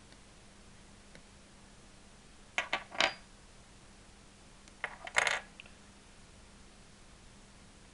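Airsoft M4 hop-up chambers, one aluminium and one plastic, clicking and clacking as they are handled and set down on a wooden tabletop, in two short clusters of sharp clicks about three and five seconds in.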